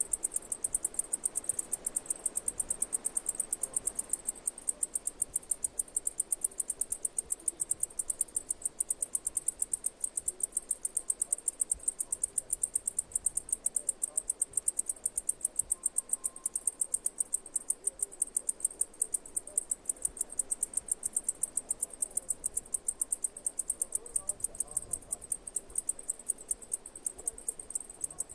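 Singing insect chirping: a steady, unbroken train of short, high-pitched pulses, about five a second, evenly spaced.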